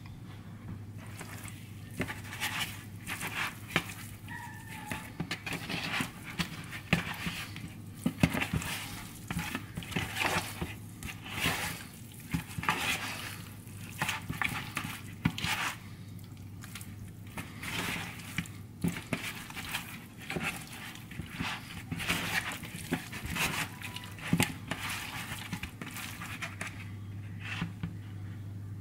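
Raw chicken wings and thighs mixed by hand in a wet seasoning coating in a plastic bowl: irregular squishing and slapping of the meat, about one or two a second, with a few sharp knocks against the bowl.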